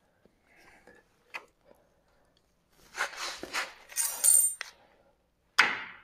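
Metal tools and parts clinking and scraping as they are handled on the steel sawmill frame, then a sharp metallic strike near the end that rings briefly.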